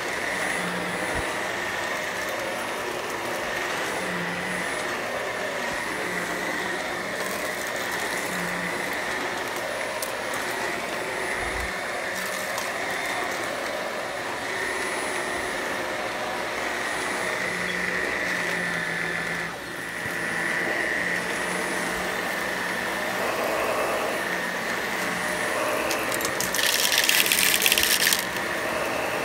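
Shark Professional Lift-Away upright vacuum cleaner running over carpet: a steady motor whine over a constant rush of suction. It dips briefly about two-thirds through, and near the end a louder, noisy burst lasts about two seconds.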